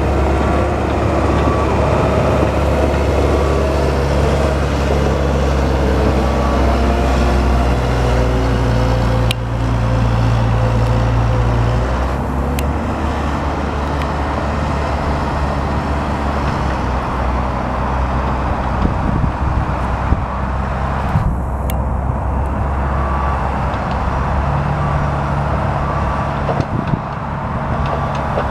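Diesel engine of a Komatsu PW160 wheeled excavator running steadily, its note changing about twelve seconds in, with a few sharp clicks.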